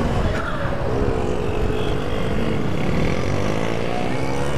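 Motorcycle engine revving, its pitch sinking over the first couple of seconds and climbing again near the end, with wind buffeting the microphone.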